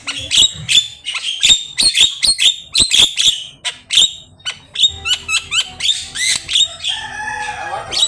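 Javan myna (jalak kebo) singing a fast, varied song: a rapid string of sharp, high chirps, clicks and squeaks, turning to lower, gliding warbled notes about seven seconds in.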